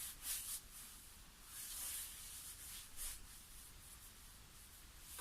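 Wet wipe rubbing over skin in a few soft swishes, the longest in the middle.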